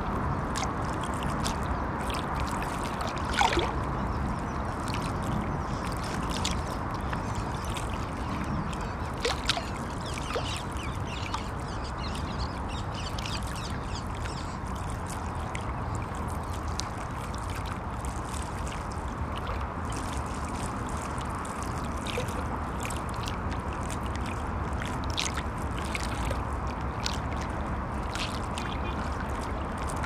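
River water lapping against the bank in many small splashes, over a steady low rumble of traffic crossing a road bridge. Two brief louder sounds stand out, about three and a half and nine and a half seconds in.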